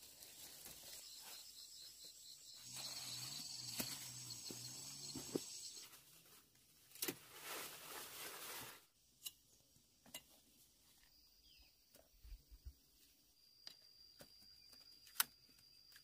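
Faint outdoor ambience: a high, pulsing chirping in the first half, then a thin steady high tone, with scattered clicks and a brief rustling noise in the middle.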